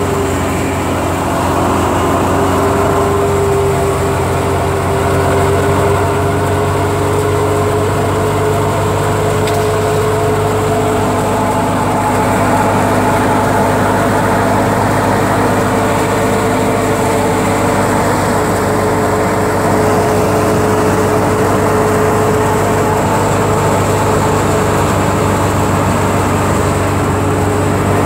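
Wheat thresher running steadily under load as wheat straw is fed in: a continuous loud mechanical drone with a low hum and a few steady tones.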